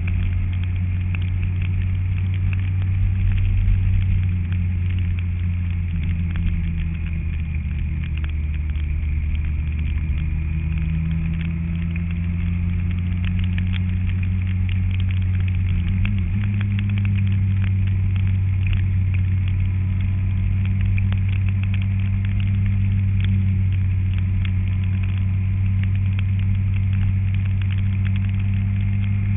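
An engine running steadily at a constant, low pitch, which shifts slightly about halfway through.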